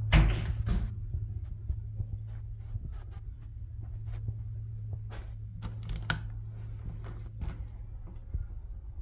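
Footsteps and short knocks on a tiled floor, with a louder bump just after the start, as a handheld phone camera is carried through the rooms. A steady low hum runs underneath.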